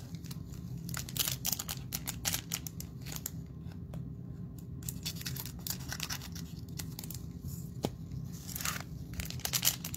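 Trading-card cello packs being handled and cut open with scissors: a run of quick snips and clicks with some crinkling rustles of the plastic wrappers.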